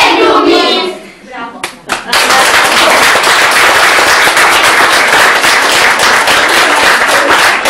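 Children's voices calling out together for the first second, a short lull with a few scattered claps, then an audience clapping steadily from about two seconds in.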